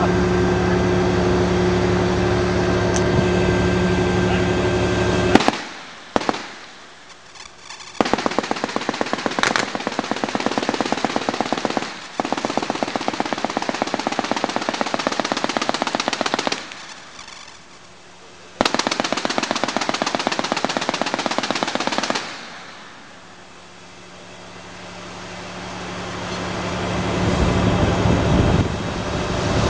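.50 calibre machine gun firing long fully automatic bursts: four strings of rapid shots, separated by pauses of one to three seconds. Under the first burst, and again during the last several seconds, a steady drone hums and grows louder.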